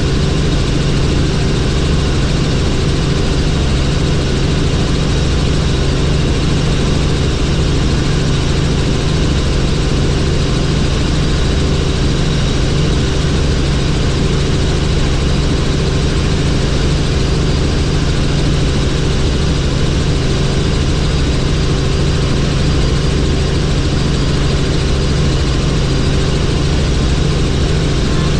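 Helicopter in flight: the steady drone of its engine and rotor, with a constant high whine above the low hum.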